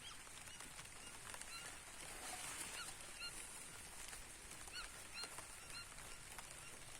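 Birds calling with many short, repeated, arched notes over a faint, steady, high hiss of rain falling on a field.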